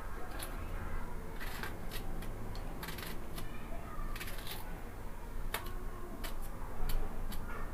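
Kitchen knife slicing through a ripe cucumber held in the hand, chopping it into small pieces: irregular crisp cuts, about one or two a second.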